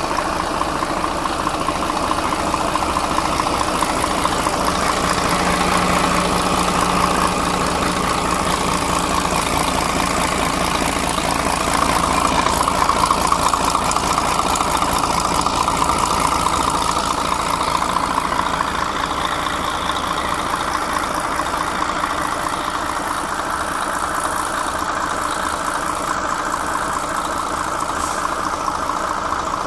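Mercedes-Benz six-cylinder V diesel engine idling steadily.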